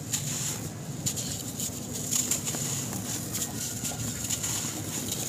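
Dry sand-cement lumps crunching and crumbling in bare hands, a steady run of small crackles with grains trickling back into the basin.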